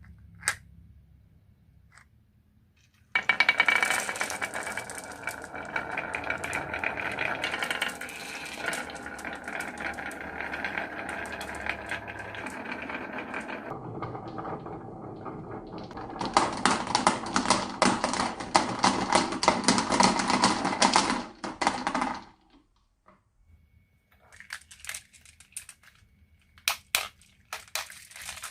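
Many marbles rolling and clattering down a wooden marble run, starting about three seconds in. A denser, louder rattle builds midway and cuts off suddenly, and a few scattered clicks of single marbles follow near the end.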